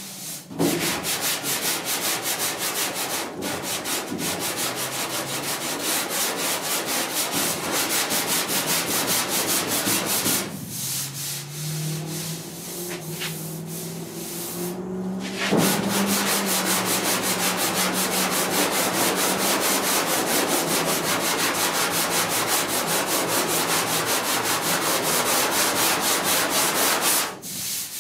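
Hand block sanding of body filler on a steel truck cab panel with a long sanding block and 80-grit paper, working out the coarser 36-grit scratches: rapid back-and-forth rasping strokes. The sanding stops for about five seconds midway, then resumes.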